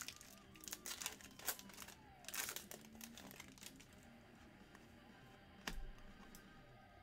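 Football trading cards being handled and slid against one another, giving soft crinkling and scuffing in a few short bursts, with faint background music.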